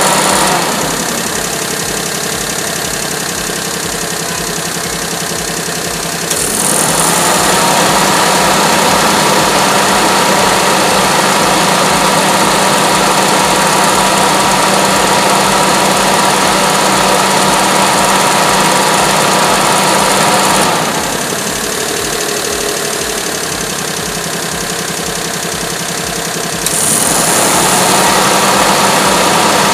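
Perodua Kelisa's three-cylinder engine idling with the A/C on. About six seconds in, the added electric condenser fan and the A/C compressor cut in together, and the sound steps up to a louder steady hum with a rush of air. They switch off about fifteen seconds later and cut back in near the end: the fan is cycling with the compressor as intended.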